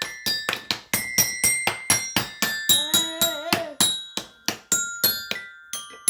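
Toy metal-bar xylophone struck rapidly and unevenly with a mallet, about four or five strikes a second, each leaving a bright ringing note.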